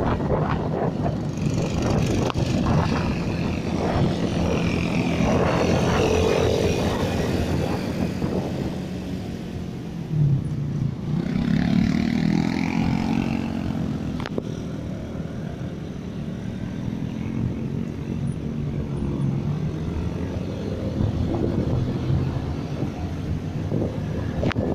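Wind buffeting the microphone over road and engine noise from a vehicle travelling along a road. The engine's pitch rises and falls twice.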